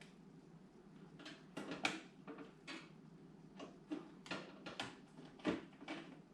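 Scattered light clicks and knocks, about a dozen, as a motherboard assembly is worked into a PC case and its parts bump against the case. The sharpest knocks come about two seconds in and five and a half seconds in.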